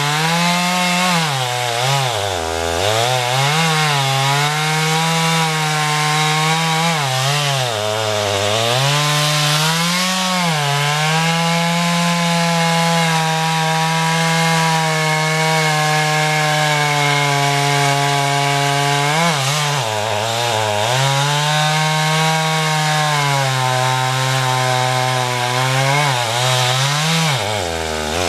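Two-stroke Stihl chainsaw running at full throttle while cutting poplar wood. Its pitch sags and recovers again and again as the chain bites under load, then holds steady and high for several seconds in the middle.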